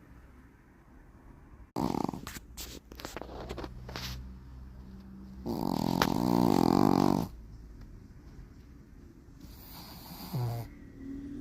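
Shih Tzu snoring, a flat-faced breed prone to noisy breathing in sleep. A long buzzing snore lasts nearly two seconds about halfway through, with a shorter one near the end and a run of short clicks before them.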